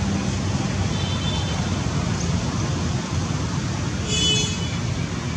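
Steady low rumble of background road traffic, with two brief high-pitched chirps, a faint one about a second in and a stronger one about four seconds in.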